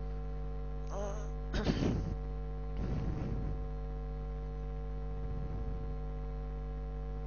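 Steady electrical mains hum in the recording, with a few brief faint noises about one to three seconds in.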